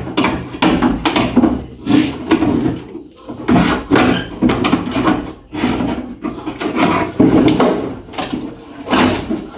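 A manual window regulator scraping, rattling and knocking against the sheet-steel inner panel of a Volkswagen Gol G2 car door as it is worked by hand into place: a steady run of short scrapes and knocks, about two a second.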